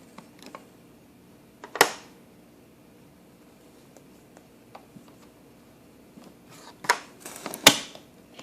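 A few sharp plastic clicks and knocks from a LeapFrog Fridge Phonics magnet toy being handled: one about two seconds in, and several louder ones near the end.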